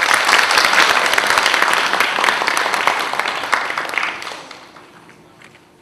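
Audience applauding, a dense run of hand claps that thins out and dies away about four to five seconds in.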